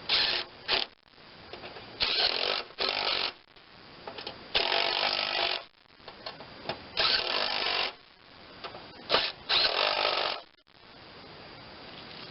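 Handheld power tool, such as a drill or driver, running in about six short bursts of half a second to a second each, as when running in the bolts of a mower deck's spindle assemblies.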